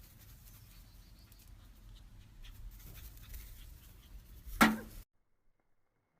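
Low steady hum with faint scuffs and light patter, then one short loud sharp sound near the end before the audio cuts off abruptly.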